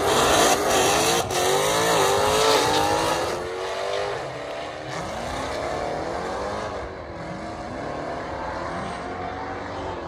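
A race car accelerating hard down a drag strip. The engine note climbs in pitch and drops back several times, and the car grows fainter as it pulls away.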